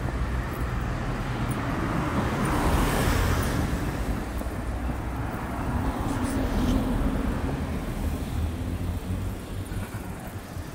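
City street traffic: a steady rumble of road noise, with passing vehicles swelling and fading twice, about three seconds in and again around six or seven seconds.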